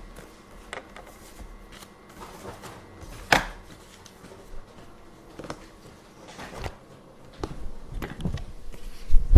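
Office background sounds: scattered light clicks and knocks, with one sharper knock about three seconds in and a louder stretch of handling noise building near the end.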